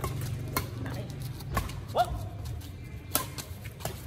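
Badminton rally: a string of sharp racket-on-shuttlecock hits, roughly one a second, the loudest about halfway, over a low steady hum.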